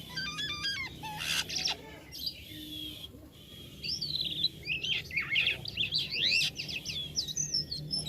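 Jalak kapas starling singing a busy, varied run of quick chirps, whistles and squeaky notes, with a short lull about two to three seconds in.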